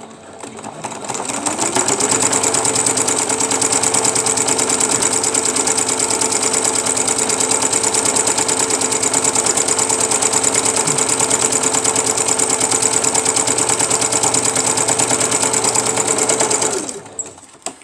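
Sewing machine stitching a seam: it speeds up over the first couple of seconds, runs fast and steady with rapid needle strokes, then slows and stops near the end.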